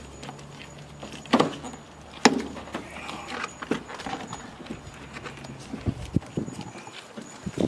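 Irregular plastic knocks and clicks as the old panel air filter is worked out of a Subaru WRX's plastic airbox, with two sharp loud knocks about a second apart near the start and lighter taps after them.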